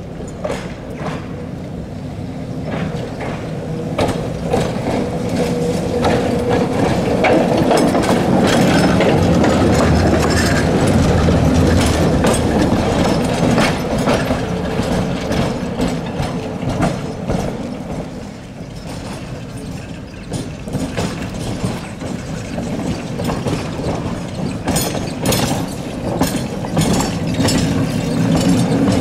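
KTM-5 (71-605) tram running past on heavily worn track, with a steady mechanical rattle and many sharp knocks from its wheels on the rails. It grows loudest about eight seconds in, eases off after about eighteen seconds, and rises again near the end as the car passes close.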